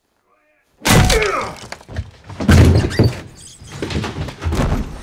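Staged fight sound effects: a sudden loud crash about a second in with a grunt, then heavy blows and thuds as bodies slam around a bathroom, one of them landing in a clawfoot bathtub.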